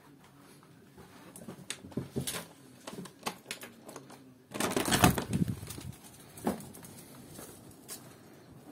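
Handling noise and footsteps as someone steps out through a door onto a paved patio: scattered clicks, taps and knocks, with a louder rushing noise lasting about a second around the middle.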